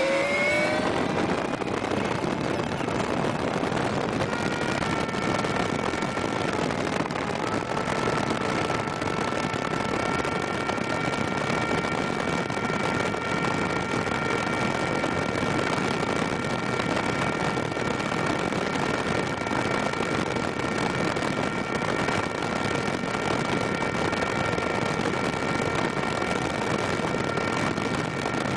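Mercury Black Max 175 hp V6 two-stroke outboard running at steady high speed, with a constant rush of wind and water. A steady high whine comes in about five seconds in and holds.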